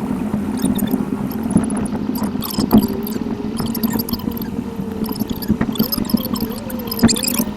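Car cabin sound from a dashcam, sped up eight times: engine and road noise pushed up into a steady hum, with a wavering whine above it and scattered clicks, the loudest about seven seconds in.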